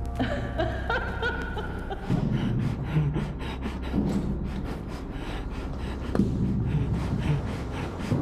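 A person panting hard while running, with quick footfalls, over a low steady hum that fades out about seven seconds in.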